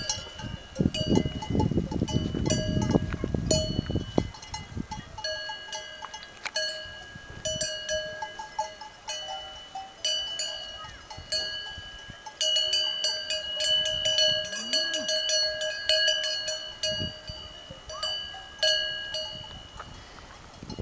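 Cowbells on grazing cattle clanking on and off, several bells ringing together and struck again and again. A low rumble runs under them in the first few seconds.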